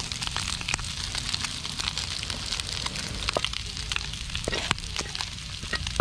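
Octopus and spider-shell sisig sizzling on a hot sizzling plate: a steady crackle scattered with many small sharp pops.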